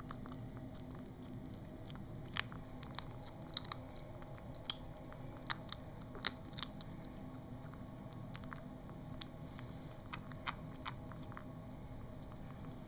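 A kitten chewing and biting its food from a ceramic ramekin: small irregular clicks and crunches, a few sharper ones scattered throughout.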